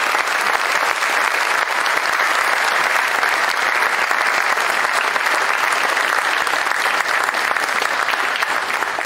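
A seated audience applauding steadily with fast, dense hand claps.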